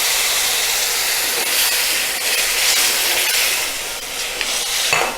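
Thick tamarind extract poured into hot sesame oil with sautéed ginger and green chillies, setting off a steady hiss and sizzle that eases off about four seconds in.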